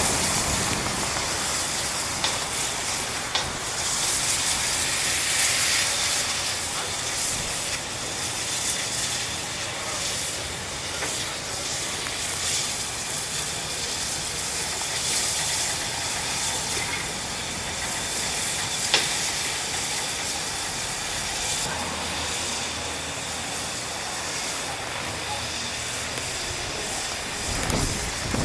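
Victorian Railways K class 2-8-0 steam locomotive hissing steam steadily as it is turned on a turntable, with an occasional sharp click.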